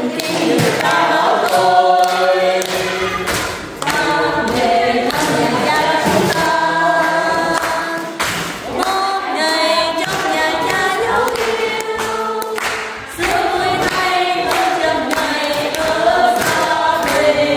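A choir of mixed voices singing together without instruments, in sung phrases with short breaks, with a few scattered thumps.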